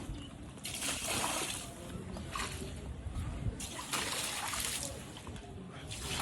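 Water splashing and sloshing in three separate bursts while a muddy door mat is being washed.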